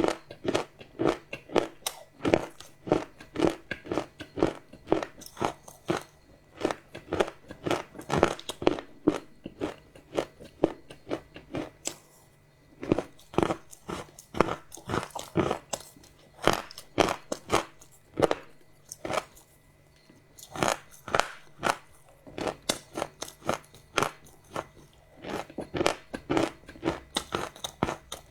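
Close-miked chewing of crunchy chocolate: rapid crisp crunches, two to three a second, with a couple of short pauses between mouthfuls.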